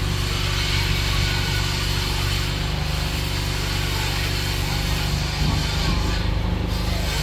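A vehicle engine running steadily close by: a low, even drone with a fast regular pulse, over street traffic noise.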